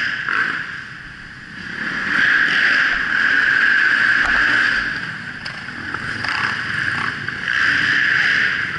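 Kawasaki motocross bike's engine running, heard muffled through a helmet-mounted camera together with wind noise. It eases off about a second in and builds again about two seconds in.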